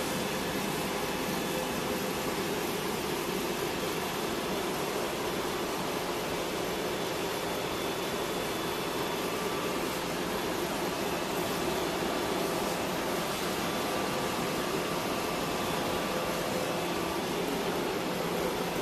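Staple wire production line machinery running with a steady, even hum and a faint steady tone, with no separate strokes or strikes.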